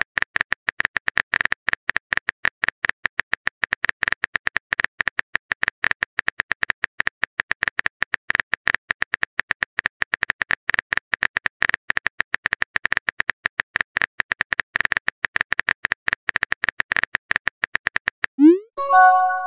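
Simulated smartphone keyboard typing sound: a rapid, even run of short key clicks as a long text message is typed out.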